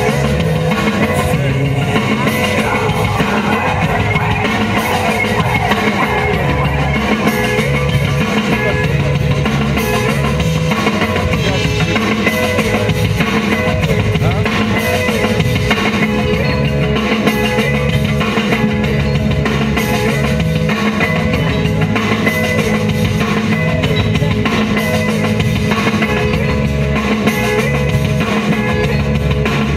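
Rock-style music with drum kit and guitar keeping a steady beat.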